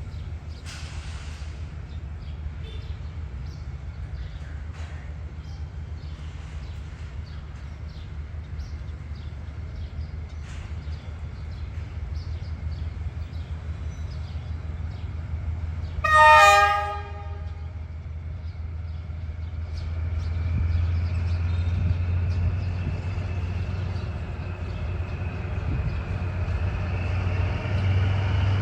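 Diesel locomotive running with a steady low rumble; about sixteen seconds in it sounds one short horn blast, the loudest thing here. Toward the end the engine grows louder with a rising whine as the train gets under way.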